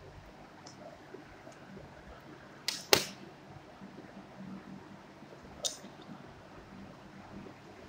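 A few sharp clacks of craft tools (scissors and a pencil) being put down on a hard plastic work table: a quick double clack about three seconds in, the loudest, and a single one near six seconds, over a faint steady hiss.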